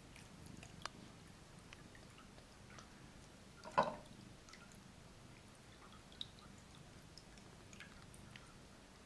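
Faint, scattered taps and clicks of a cat pawing at a plastic dome toy and its wand, with one louder knock about four seconds in.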